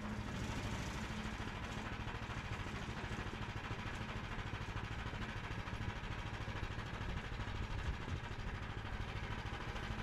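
Harbor Freight portable sawmill's gas engine running steadily at an even speed.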